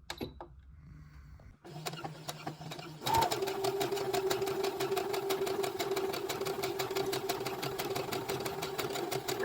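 Brother automatic sewing machine starting to stitch about three seconds in, then running at a steady speed: a motor hum with a fast, even needle clatter.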